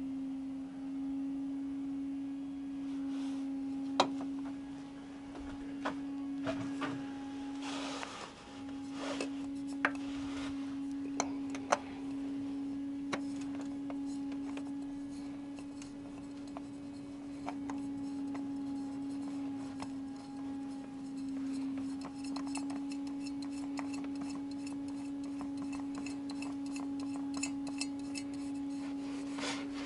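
A steady low hum at one pitch throughout, with scattered clicks, taps and rubbing as a spin-on oil filter is handled and screwed onto the engine by hand, and a quick run of small ticks near the end.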